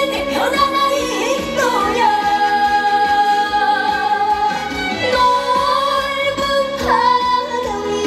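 Young woman singing a Korean trot song live into a handheld microphone, with music playing behind her. She holds long notes, one running from about two seconds in to about five.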